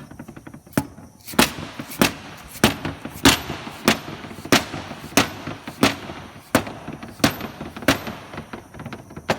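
A hammer striking repeatedly at an even pace, about a dozen sharp blows roughly one and a half per second, with a rattly noise between the blows.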